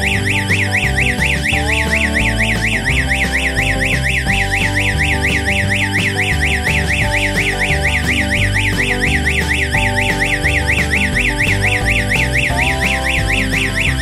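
Electronic alarm siren warbling, its pitch rising and falling several times a second: a security alarm sounding its power-failure alarm after the mains supply is cut.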